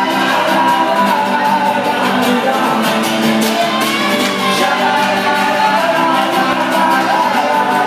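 A live band playing and singing a pop song, loud and steady.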